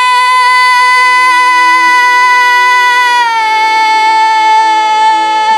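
A singer holding one long, high sung note, dipping slightly in pitch about three seconds in, over a quieter backing track.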